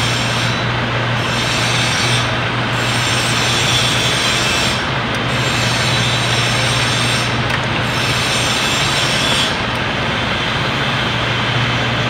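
A steady machine drone with a constant low hum, unchanging throughout.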